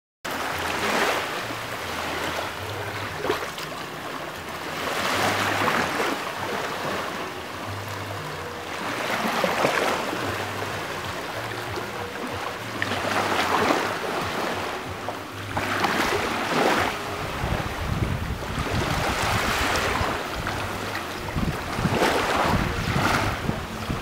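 Small waves washing onto a beach, swelling and falling away every few seconds, with wind rumbling on the microphone, heavier in the second half.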